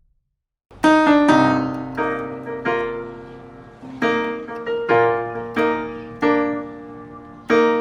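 Piano playing a slow run of chords, each struck and left to ring and fade, starting after a moment of silence.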